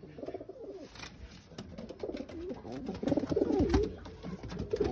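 Domestic pigeons cooing: a short run of coos near the start, then louder, longer cooing through the second half.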